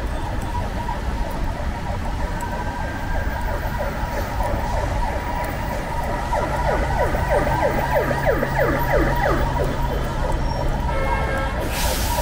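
Emergency vehicle siren sounding over the steady hiss of rain and wet-road traffic, faint at first and then a fast run of rapidly repeating pitch sweeps for a few seconds in the middle. A short hiss comes near the end.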